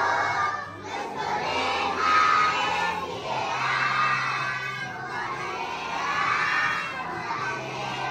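A large group of young schoolchildren singing their school hymn together, loud and in unison, phrase by phrase.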